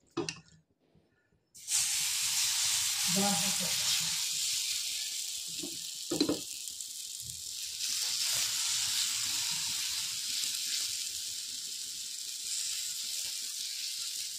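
Uttapam batter sizzling on a hot oiled non-stick tawa, starting suddenly about a second and a half in as it hits the pan and continuing as a steady hiss that slowly fades. A few brief scrapes of the spoon spreading the batter sound over it.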